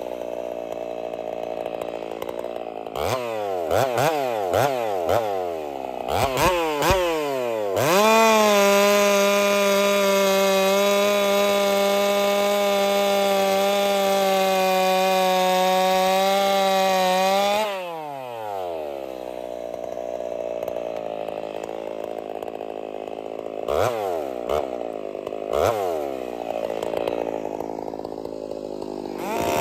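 Gas chainsaw, fitted with an aftermarket pod air filter, winds down to idle and gets a few quick throttle blips. It then runs at full throttle for about ten seconds, holding a steady high pitch while the chain cuts through a log. Near the end it drops back to a lumpy idle, with a couple more blips.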